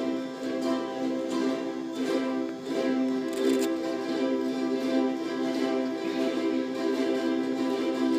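Live music from a choir concert performance: plucked strings strummed under steady held notes, at an even level throughout.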